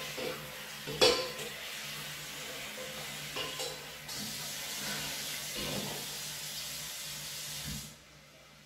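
Kitchen tap running into a bowl of red lentils, flushing the last lentils out with water; a sharp knock about a second in, and the water stops abruptly near the end.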